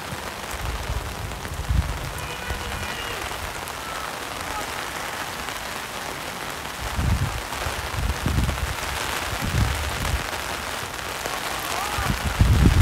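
Steady rain hissing on and around the phone's microphone, with a few low rumbles on the microphone that are loudest near the end. Faint distant shouts now and then.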